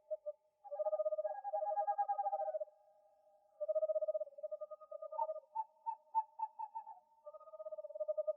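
Owl calling: several long, trilled, hooting calls, with a quicker string of short hoots in the middle.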